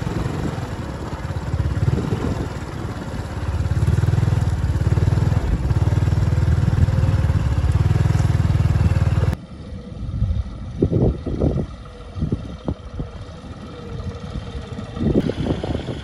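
Motor vehicle engine running while travelling along a rough dirt farm track: a loud, steady, low engine noise for about nine seconds, then an abrupt cut to a quieter engine hum with irregular low thumps.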